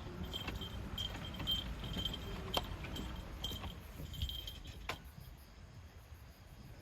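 Short high chirps at one pitch, repeated irregularly like an insect calling, fading out about two-thirds of the way through, over a low rumble of wind. There are two sharp clicks, one midway and one about five seconds in.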